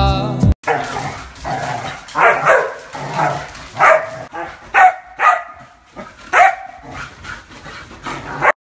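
Husky puppy barking and yipping in short, high calls, about one a second, several of them dropping in pitch.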